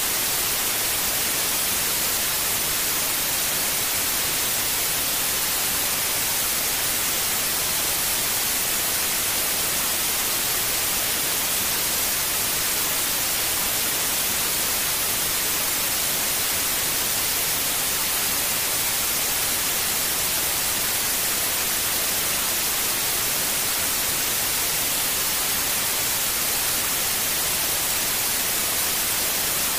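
Steady white noise: an even, unchanging hiss, strongest in the high pitches.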